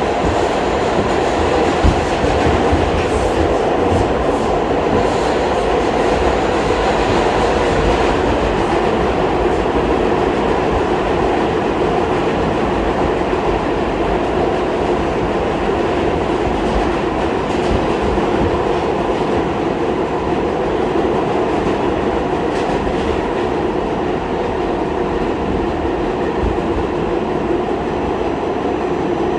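Running noise heard from inside an R46 subway car under way: a steady, loud rumble of wheels on rails and the car's motors, with a couple of sharp knocks near the start.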